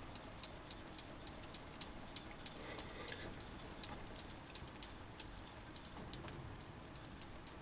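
Light, sharp clicks, about three or four a second and not quite even, from the Chinese mini lathe's carriage being wound along to bring the toolpost drill up to the work.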